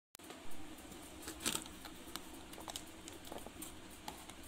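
Light taps, clicks and crinkles of hands handling a clear plastic tub of small wooden stamp blocks, over faint room hiss. The loudest knocks come about half a second and a second and a half in.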